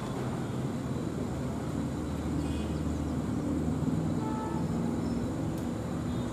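WDM3D ALCO diesel locomotive's 16-cylinder engine running under load as it pulls a passenger train away: a steady low rumble with a pitched engine drone.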